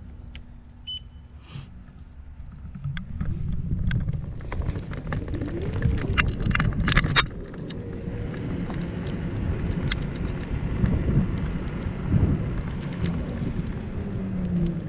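Wind and road rumble on a camera riding a moving vehicle, with scattered rattling clicks and a low whine that rises and falls in pitch. A short electronic beep sounds about a second in, before the rumble builds up around three seconds in.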